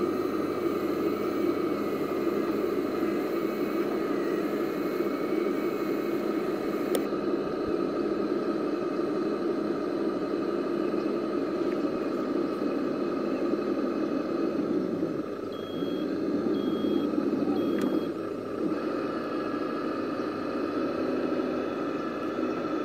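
Steady whirring of the scratch-built RC rollback's small electric winch motor and gearing as it draws a model pickup up the tilted bed. Three short high beeps sound about two-thirds of the way through.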